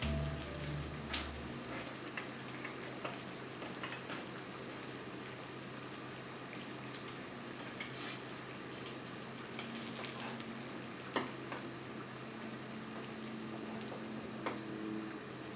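Food sizzling in a hot pan: a steady frying hiss with scattered light clicks and taps.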